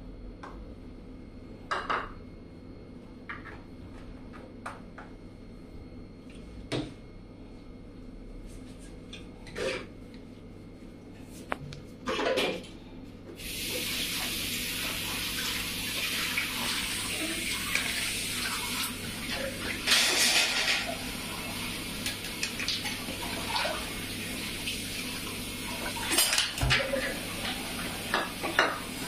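Stainless steel pots, pans and lids clanking now and then as a small child handles them on a tiled floor. About halfway through, a steady rushing hiss starts and runs on under further, louder clatters.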